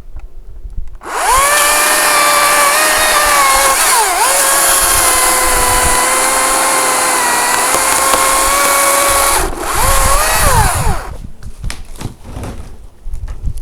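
Makita 40V cordless top-handle chainsaw revving up about a second in and running at full speed with a steady high electric whine while cutting dead branches. The pitch dips briefly partway through as the chain loads in the wood. It stops, gives one short second burst, and winds down with a falling pitch.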